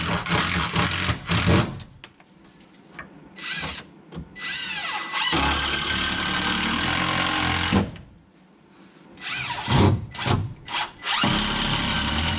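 Cordless drill driving screws into wooden roof bracing, in several runs of a few seconds each with short pauses between, its pitch sweeping up and down a couple of times.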